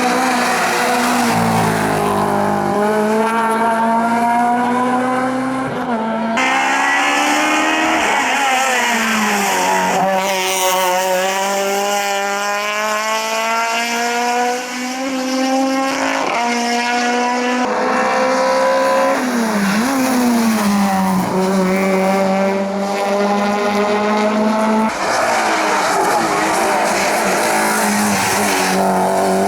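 Competition cars' engines at full throttle on a hillclimb. The engine note climbs and drops again and again with gear changes and lifts off the throttle, with several sudden jumps where it cuts from one car to another.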